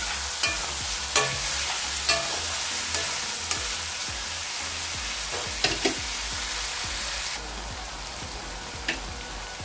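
Freshly added sliced onions sizzling in oil in a karahi on low-to-medium heat. A spatula knocks and scrapes against the pan about once a second at first, then a few more times later, and the sizzle drops somewhat about seven seconds in.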